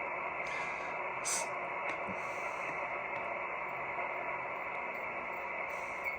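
Swan 350C shortwave transceiver receiving on the 10-meter band: steady static and band noise from its speaker, with the sound cut off above the narrow sideband audio passband.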